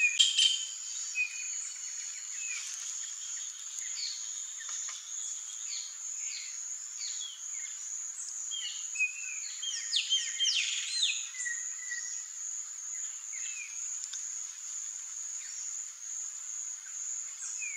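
A steady high-pitched insect drone with many short bird chirps and down-slurred calls over it, loudest right at the start and busiest again around ten seconds in.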